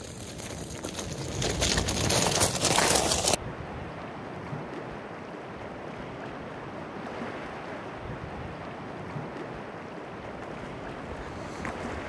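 Fat-bike tyres crunching and rattling over beach cobbles, growing louder as the bike approaches and cutting off abruptly about three seconds in. After that comes a steady, quieter rushing noise like wind.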